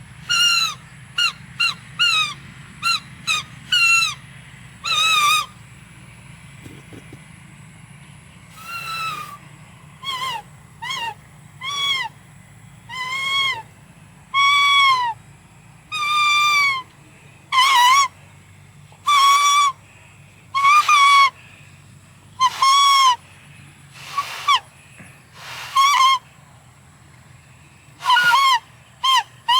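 Leaf trumpet blown in loud toots, each arching slightly up and down in pitch: a quick run of short toots, a pause of a few seconds, then longer toots of about half a second to a second, roughly one a second.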